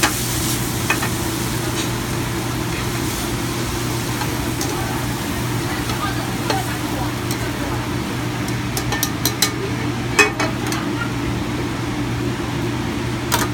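Chicken ramen noodles sizzling in a hot pan as they are tossed with metal tongs and tipped out onto a plate, with scattered clicks and clinks of the tongs and pan, most of them about nine to ten seconds in. A steady hum of kitchen ventilation runs underneath.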